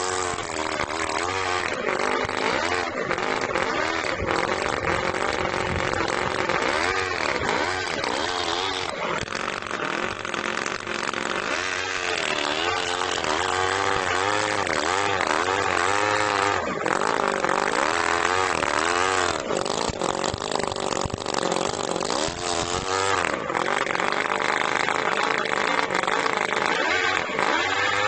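Miniature internal-combustion engine of an RC crawler car running and revving up and down over and over, its pitch rising and falling every second or two as the car drives.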